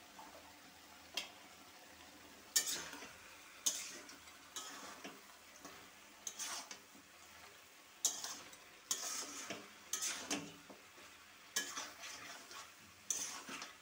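A spatula scraping and knocking against a metal wok as chicken pieces are turned and mixed with freshly added turmeric and red chilli powder. The strokes come irregularly, about one a second.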